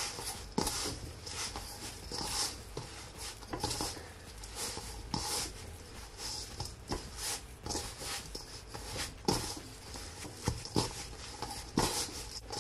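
A hand squishing and kneading sticky cornmeal-and-flour festival dough in a stainless steel bowl, in irregular strokes about twice a second, as water is being worked into the dough.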